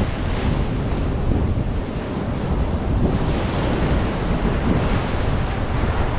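Surf breaking on the beach, with strong wind buffeting the microphone.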